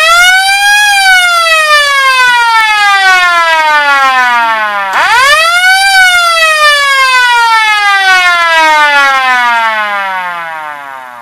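Federal Enterprises Model A electromechanical siren test-run and in working order: a loud wail that winds up quickly to its peak about a second in, then slowly winds down. About five seconds in it winds up again just as quickly, then winds down and fades out near the end.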